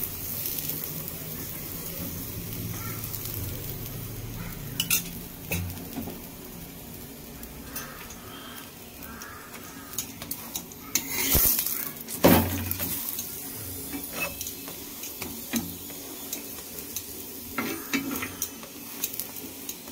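A dal-stuffed roti sizzling steadily in oil on a hot tawa, with a metal spatula scraping and clicking against the griddle several times; the loudest scrapes come about halfway through.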